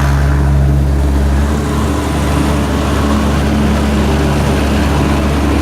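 Rice combine harvester's engine running steadily under harvesting load, a loud, low, even hum whose lowest tones shift about a second and a half in.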